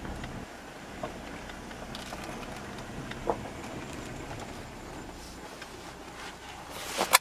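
Car interior while driving slowly over a rough dirt track: a steady low rumble with scattered small rattles and knocks, and a loud sharp click near the end.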